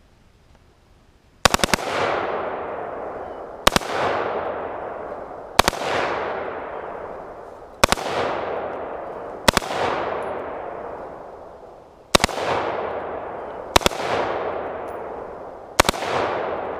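Smith & Wesson M&P 15 AR-15 rifle with a bump fire stock firing in short bump-fire bursts: about eight bursts of two to four very rapid shots, each trailing a long echo. The bursts stay short rather than running on as the shooter struggles to keep the rifle held down against muzzle climb.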